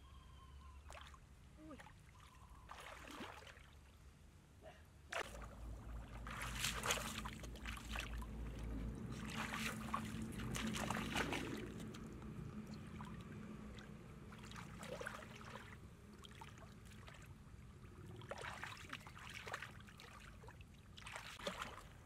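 Shallow muddy water splashing and sloshing in irregular bursts as a person wades and works a bamboo fish trap and her hands through it. It is loudest and busiest from about five to twelve seconds in.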